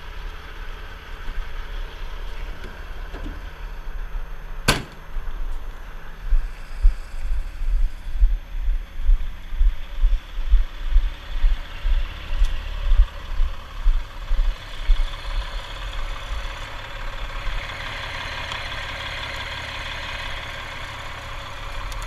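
Heavy diesel truck engine idling, with one sharp knock about five seconds in. Through the middle there is a run of low thumps, about two a second, like footsteps.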